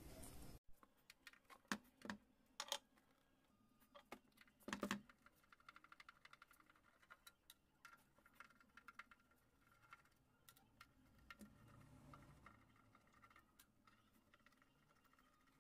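Faint clicks and a few light knocks of hands and tools working on a metal amplifier case, with a quick run of small ticks in the middle, as the Ahuja UBA-800 power amplifier is opened up.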